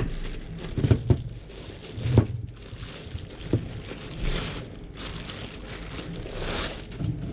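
Packaging being handled: a few light knocks in the first few seconds, then plastic or paper packaging crinkling and rustling in two swells, about four and six and a half seconds in.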